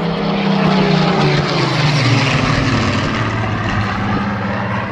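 A display aircraft making a low flypast. Its engine note drops in pitch about two seconds in as it passes, over a loud, steady roar.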